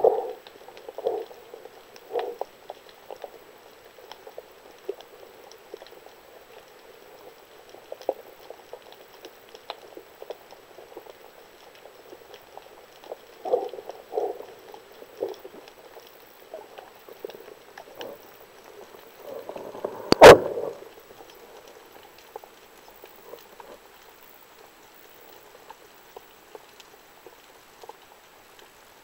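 Underwater sound through a diving camera's housing: irregular soft crackling and pops, with one sharp, loud click about two-thirds of the way through.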